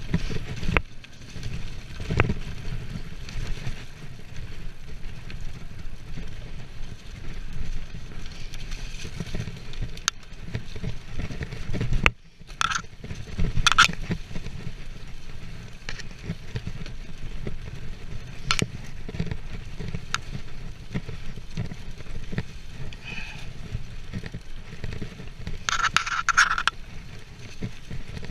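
Mountain bike riding fast downhill on a leaf-covered dirt trail: tyres rolling and scraping over leaves and ground under a steady low rumble, with frequent sharp knocks and rattles from the bike over bumps, and a brief harsher scraping burst near the end.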